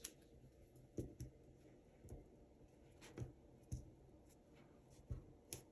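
Near silence with a few faint, scattered taps and light handling of paper as hands position a sticker on planner pages.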